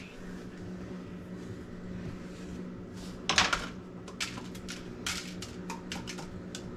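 Paring knife and bell pepper on a cutting board: irregular knocks and clicks, the loudest just after three seconds in, then lighter taps every half second or so, over a steady low hum.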